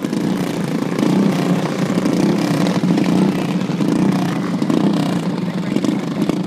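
Several racing riding lawn mowers' small engines running together at speed as they lap a dirt track, a loud, steady drone.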